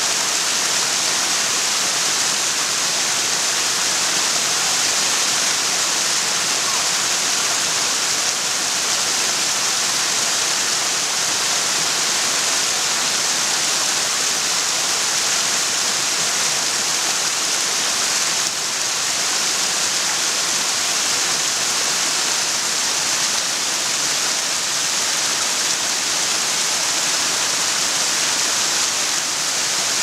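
Waterfall cascading over boulders into a river: a steady, even rushing hiss of falling and splashing water.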